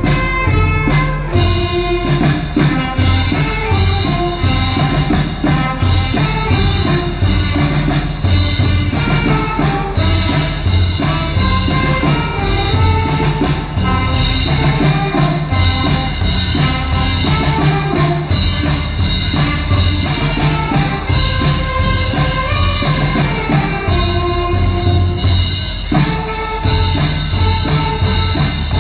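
Brass band playing a tune over a steady drum beat.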